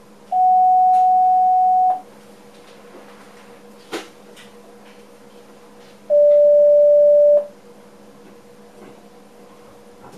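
Two steady electronic warning tones from the train cab's equipment. A higher tone sounds for about a second and a half, then a slightly lower one for just over a second. Between them comes a sharp click, over a constant cab hum.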